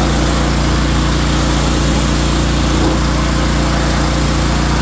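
Engine-driven pressure washer running steadily, its small motor humming under the hiss of the water jet.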